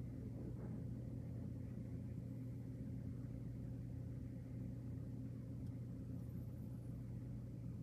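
Steady low rumble and hum of distant city traffic, unchanging throughout.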